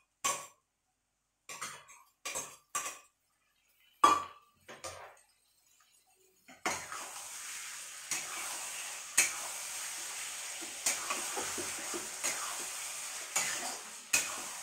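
A steel spoon clinks several times against a steel bowl and pot as yogurt is spooned into the pot. About six and a half seconds in, a steady sizzle starts as the masala chicken fries on the gas flame, with a spatula scraping the steel pot roughly once a second as it is stirred.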